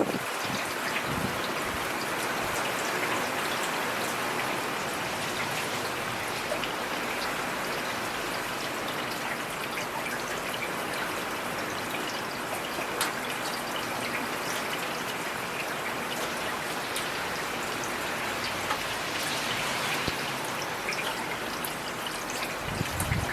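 Heavy rain falling steadily, many separate drops clicking on hard surfaces close by, with a brief low rumble near the end.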